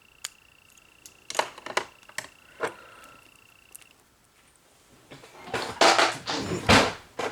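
Manicure bottles and tools being handled on a desk: a few light clicks, then a louder clatter and rustle near the end. A faint steady high whine runs underneath and stops about four seconds in.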